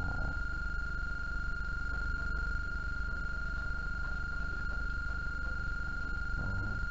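Steady high-pitched electronic whine, one unchanging tone with fainter overtones, over a low mains hum from the freshly repaired CRT television, powered up with its chassis board exposed.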